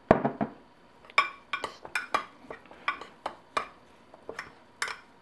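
Metal spoon stirring an herb and olive-oil paste in a small ceramic bowl, clinking against the bowl's sides in a string of sharp clinks. A louder knock comes at the very start.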